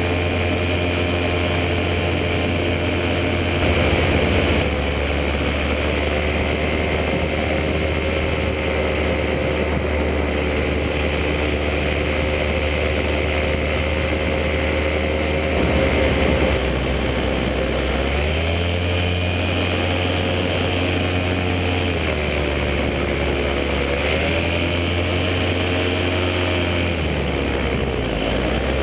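Paramotor engine and propeller running steadily in flight. The engine note drops twice for a few seconds, about two-thirds of the way through and again near the end, as the throttle is eased off and then opened again.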